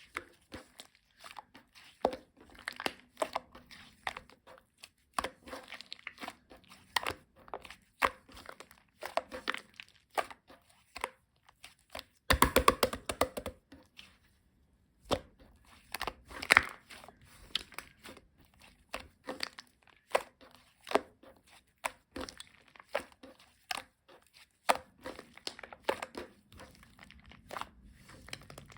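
Irregular clicks, taps and crinkling from something being handled at close range, with a fast rattling run of clicks about twelve seconds in and a brief pause just after.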